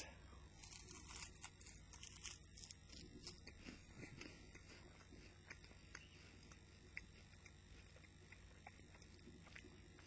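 Faint chewing and crunching of a chocolate-topped rice cake: scattered small crisp clicks, more frequent in the first few seconds.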